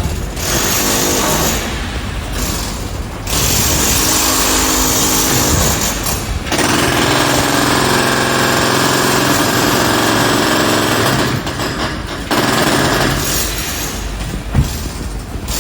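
Jackhammer breaking at a construction site, hammering in long stretches with a few short breaks, with a steady engine-like drone under some of it.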